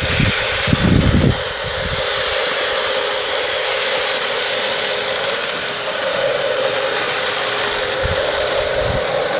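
LionChief RS3 garden-railway model diesel locomotive running with a steady whirring hum. Wind buffets the microphone about a second in and again near the end.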